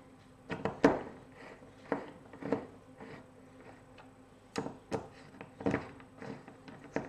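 Scattered light clicks and taps, about nine at uneven spacing, of a small magnetic screwdriver driving the lid screws into an aluminium electronics case.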